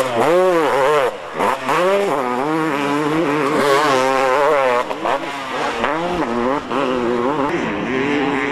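Two-stroke motocross bike engines revving hard. The pitch rises and falls in repeated sweeps as the throttle is worked, then holds steadier near the end.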